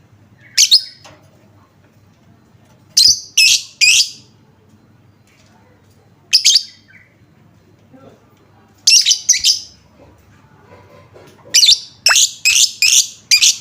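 Lovebird giving loud, shrill calls in short groups: a single call, a run of three, another single, another three, then a quicker run of about five near the end.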